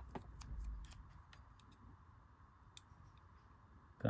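Faint, scattered light ticks and clicks from hands handling small LEGO parts and stickers.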